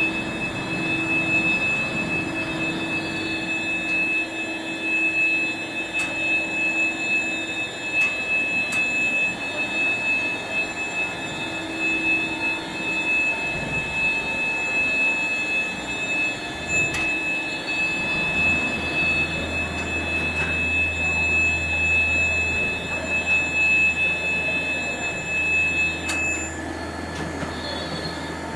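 60/10-tonne overhead bridge crane travelling along its runway: a steady mechanical running sound with a high steady tone that stops near the end, and a low hum joining about two-thirds of the way in.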